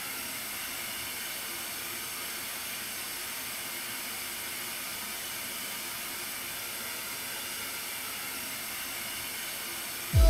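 Steady, even hiss of analogue TV static (white noise), unbroken until loud music cuts in right at the end.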